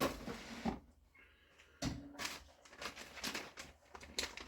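Rustling and handling noises: a couple of soft short sounds at the start, then from about two seconds in a run of short rustles and scrapes.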